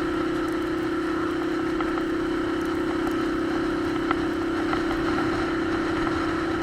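Motorcycle engine running at a steady speed while riding, an even drone that holds one pitch without revving up or down.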